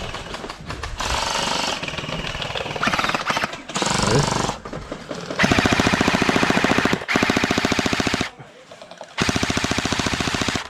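Electric gel blasters firing on full auto: bursts of very fast, even clicking. The three longest bursts come in the second half, each about a second to a second and a half long, with shorter bursts earlier.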